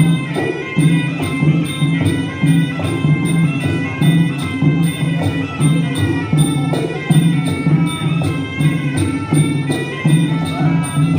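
Traditional Khmer boxing music: percussion keeping a steady, even beat under a sustained melody.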